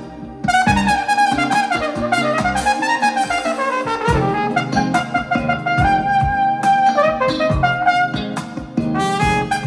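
Band music led by a brass horn, which plays a winding line that climbs and falls and then settles on long held notes, over bass and drum hits.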